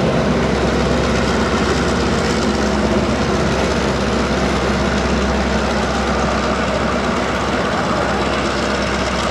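Diesel locomotive of the Lehigh Gorge Scenic Railroad train running steadily, a constant low engine hum under a broad even noise.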